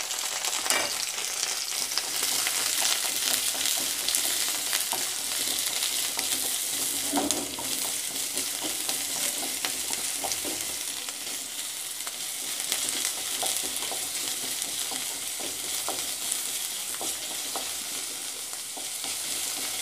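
Chopped onion and green chillies sizzling steadily in hot oil in a stainless steel kadai as they are sautéed, with a wooden spatula scraping and knocking against the pan now and then as it stirs them.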